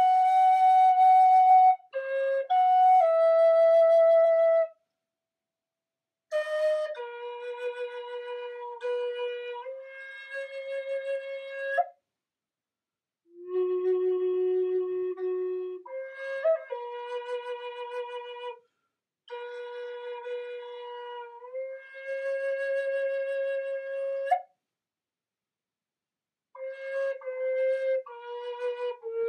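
Native American-style flute in F sharp (F#4), made of poplar with a walnut block, played in slow phrases of held notes with short silent gaps between them. The lowest note, the flute's low F sharp, is held for a couple of seconds about halfway through.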